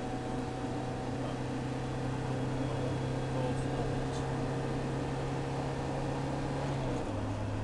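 Van engine running at motorway speed with steady road and wind noise, heard from inside the cab. The engine's low hum drops a step in pitch near the end.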